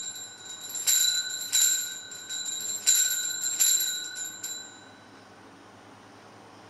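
Altar bell rung in repeated shakes, each stroke ringing with the same bright tones, then dying away about five seconds in. It is the consecration bell marking the elevation of the host.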